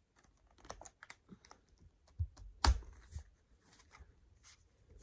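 Hands handling a box of capsule-shaped lipsticks: a run of small clicks and taps, with one louder knock a little past halfway.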